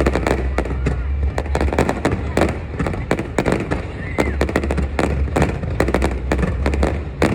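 Aerial fireworks going off in rapid succession: a dense barrage of sharp bangs and crackles with a continuous low rumble underneath.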